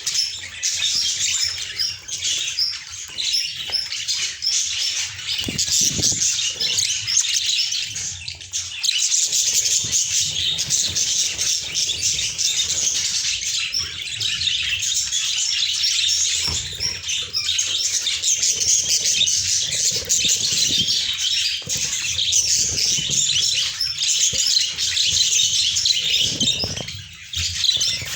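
A group of budgerigars chattering and chirping continuously in a dense, high-pitched warble.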